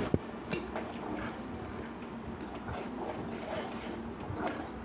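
Occasional light knocks and clicks from a pan of chana masala gravy being cooked and stirred on the stove, over a low steady hum.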